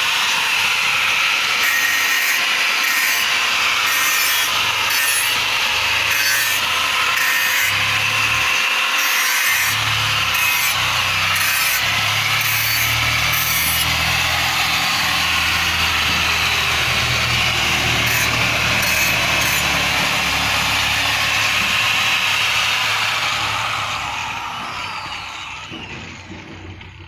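TOTAL angle grinder grinding the edge of a steel plate: a loud steady grinding with uneven rasping where the disc bites. Near the end it is switched off and winds down over a few seconds.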